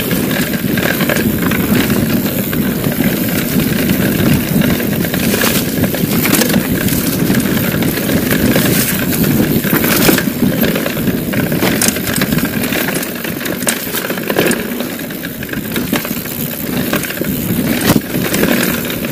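Mountain bike riding fast down a dirt singletrack: continuous low rumble of wind and tyres, with frequent sharp clicks and knocks as the bike rattles over bumps.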